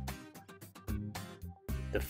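Quiet background music with plucked string notes.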